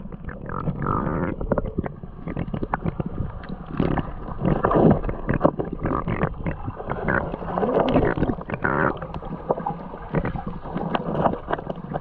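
Seawater heard underwater through a waterproof GoPro's housing: a muffled low rumble of moving water with bubbly gurgles and many crackling clicks.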